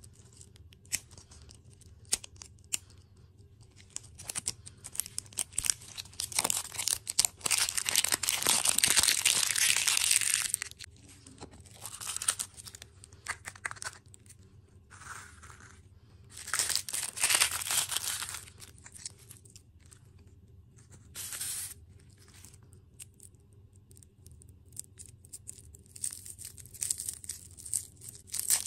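Plastic wrapping being torn off and crinkled while a plastic toy-and-lollipop capsule is unwrapped and opened by hand. Several bursts of tearing and crinkling, the longest about seven to ten seconds in, come between scattered light clicks of handling.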